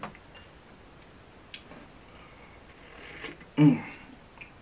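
A person sips hot black tea with a short slurp, then lets out a brief voiced 'ahh' of appreciation, the loudest sound here. A light click of a cup comes about a second and a half in.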